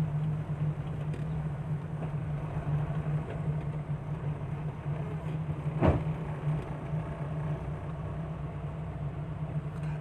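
A car's engine and road noise, heard from inside the cabin while driving: a steady low hum with a rushing haze over it. There is one brief knock about six seconds in.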